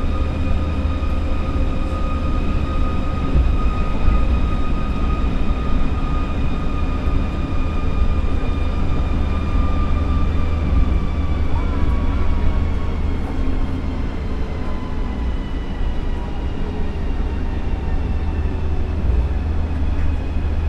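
Osaka Monorail train running along its elevated guideway, heard from the front of the car: a steady low rumble with a motor whine of several tones that slowly fall in pitch.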